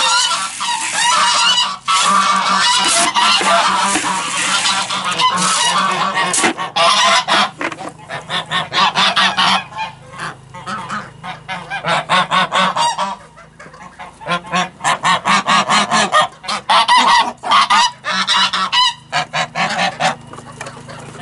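A flock of white domestic geese honking loudly, gathering to be fed. The calls overlap in a dense, constant chorus for about the first seven seconds, then come in separate bursts with short lulls.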